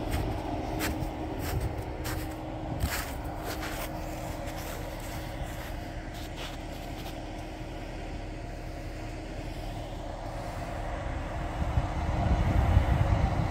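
Ram 1500 pickup's engine running as the truck works through deep mud. There are a few sharp smacks in the first few seconds, and the rumble grows louder near the end.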